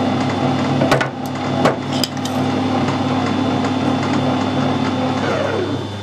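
Metal lathe running with its motor hum steady, with a few sharp metallic knocks about one and two seconds in. Near the end the lathe is switched off and its pitch falls away as the chuck spins down.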